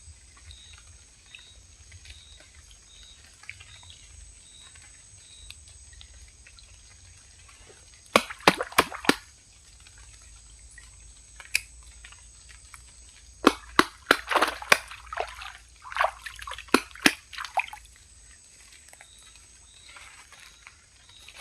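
Water splashing in two bouts of sharp, irregular splashes, a short one about eight seconds in and a longer one from about thirteen to eighteen seconds.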